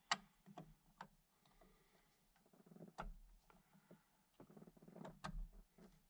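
Faint, sharp clicks and small handling noises as a horn button is pressed and seated into the hub of an aftermarket steering wheel, about four distinct clicks spread through the quiet.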